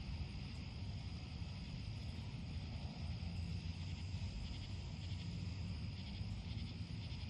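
Crickets chirring steadily, a continuous high trill with fine rapid pulses, over a steady low rumble.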